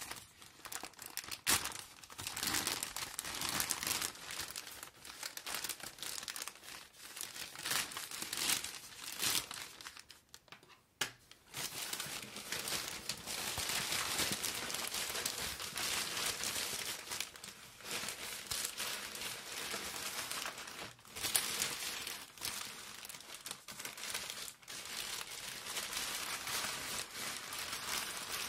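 Plastic poly mailer bag crinkling as it is handled and pulled open by hand, with a brief lull about ten seconds in.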